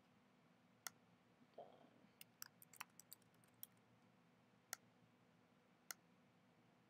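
Faint computer keyboard typing: a quick run of about ten key presses starting about two seconds in, typing a short word. Single mouse clicks come before and after it.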